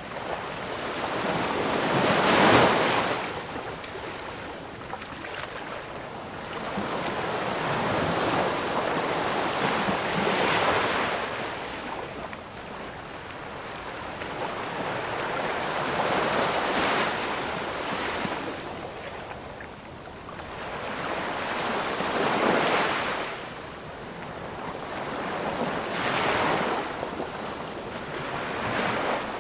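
Ocean waves breaking and washing onto a shore, a wave cresting every five to six seconds with a hiss between swells.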